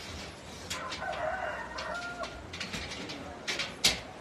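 A rooster crows once, from about a second in, for roughly a second and a half. Steel shelving parts clank and knock several times, the loudest knock near the end.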